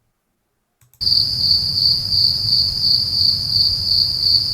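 AI-generated night-time crickets, made by the ControlFoley text-to-audio model: a steady high-pitched chirring trill that starts about a second in, over a low background rumble.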